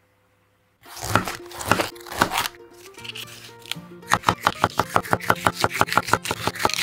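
Kitchen knife slicing bell peppers on a wooden cutting board. A few separate cuts come about a second in, then a quick even run of about five cuts a second from around four seconds in. Light background music plays underneath.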